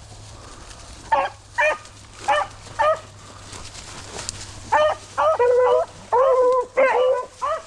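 Beagle hounds baying as they open on a scent trail. There are four short chop barks, then from about five seconds in a run of longer, drawn-out bawls.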